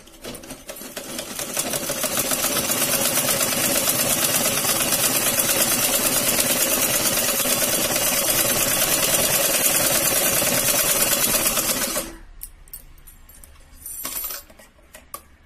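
Usha sewing machine stitching a seam through layered shawl fabric. It speeds up over the first two seconds, runs at a fast, even stitching rhythm, then stops abruptly about twelve seconds in. A brief snip of scissors cutting the thread follows near the end.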